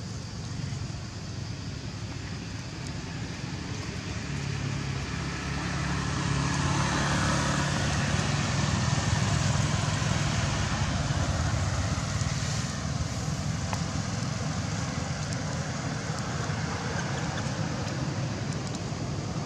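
Road traffic with a low engine hum; a motor vehicle swells up and passes about halfway through, then fades.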